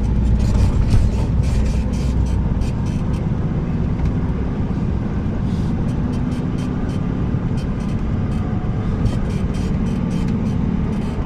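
Motor vehicle on the move: steady low engine and road noise, with frequent small clicks and rattles throughout.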